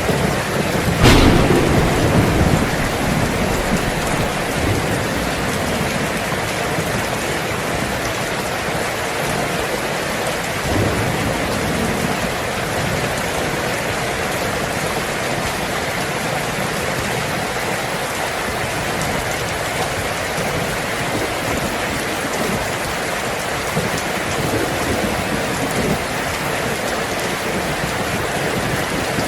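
Heavy rain drumming steadily on a tin roof. About a second in, a sharp thunderclap cracks and rolls off in a low rumble. A fainter rumble of thunder follows around the middle.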